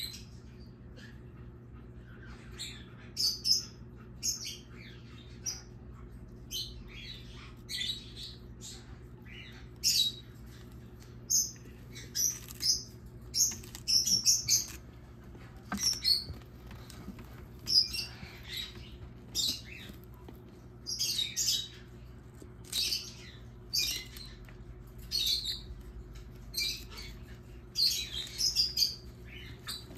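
Russian tortoise biting and chewing lettuce: short, crisp crunches at irregular intervals, sometimes several in quick succession, over a low steady hum.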